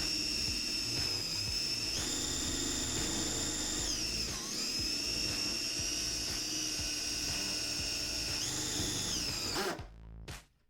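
A small cordless drill's motor whines at high speed, likely while drilling through 3/4 inch hardwood plywood. Its pitch steps up about two seconds in and dips briefly near four seconds as it slows. It rises again near the end, then stops suddenly.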